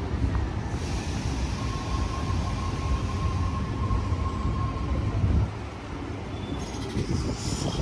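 Train passing on the line: a loud, low rumble of the wheels on the track with a faint steady whine through the middle, the rumble dropping away suddenly about five and a half seconds in.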